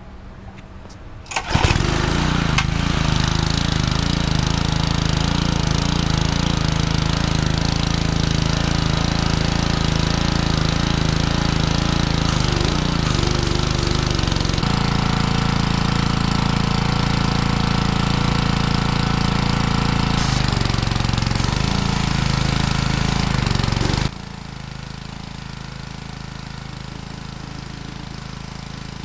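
Small gasoline engine of a pressure washer starting about a second and a half in and running steadily. Near the end the sound drops suddenly to a quieter steady running.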